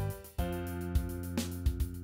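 Closing theme music: sustained instrumental chords with drum hits, a new chord struck about half a second in.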